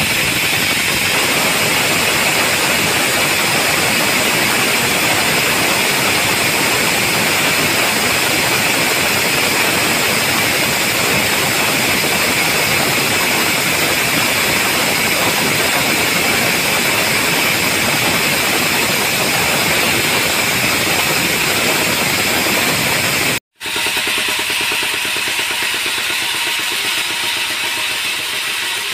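Sawmill band saw blade cutting through a mahogany log: a loud, steady hiss. After a sudden break about 23 seconds in, a stationary diesel engine runs steadily, quieter, with an even rapid chug.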